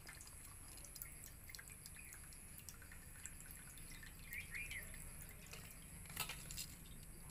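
Water faintly dripping and trickling out of a steel bowl of soaked rice as it is drained past a tilted aluminium lid, with a few light ticks.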